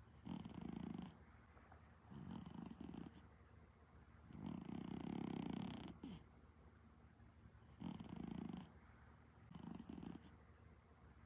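Exotic Shorthair cat snoring in its sleep, with five rough snoring breaths at an even pace about two seconds apart.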